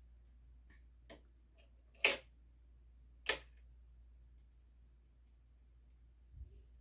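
Sharp clicks of a screwdriver and small metal mounting screws and bars being handled while a CPU cooler mounting kit is fitted. The two loudest come about two and three seconds in, with fainter ticks between and after.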